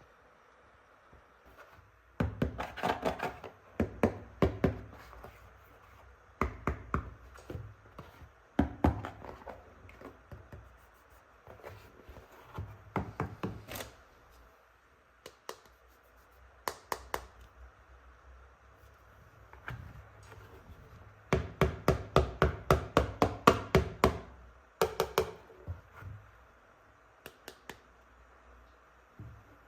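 Plastic toy gun set pieces being handled, with clusters of sharp plastic clicks and knocks. There are two long runs of quick, even clicks, one about two seconds in and another about twenty-one seconds in, and scattered taps between them.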